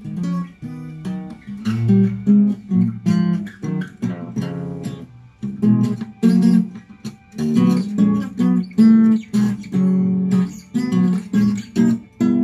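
Steel-string acoustic guitar played with the fingers: plucked chords and single notes following one another in an uneven rhythm.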